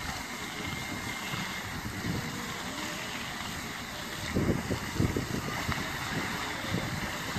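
Wind buffeting the microphone in gusts over a steady rushing hiss from the lit fountain's water jets. The gusts get much heavier from a little past halfway.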